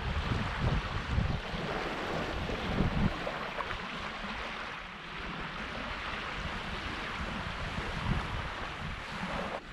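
Small waves lapping and washing on a sandy, pebbly shore, with wind gusting on the microphone.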